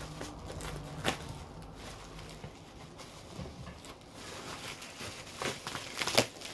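Plastic wrapping being pulled and torn off a set of paperback books: scattered crinkles and crackles, the sharpest about a second in and a cluster near the end.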